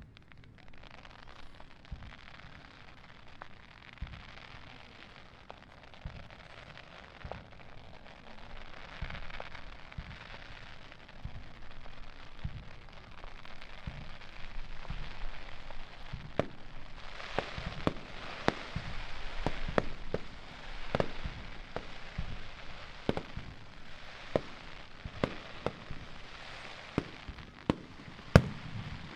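Fireworks display: a steady hiss between sharp bursts. The bursts come thick and fast from about halfway through, one or two a second, and are loudest near the end.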